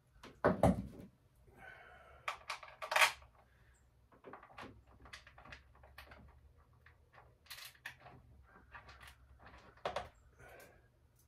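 Handling noises as a hard plastic dirt-bike front fender is worked into place: scattered knocks, clicks and short scrapes, the loudest a heavy thump about half a second in.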